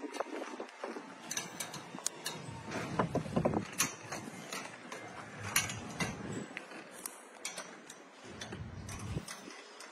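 Hardwood Mills GT28 band saw blade sharpener being adjusted by hand, its grinder not running: irregular metallic clicks and taps from the indexing and depth mechanism and the blade.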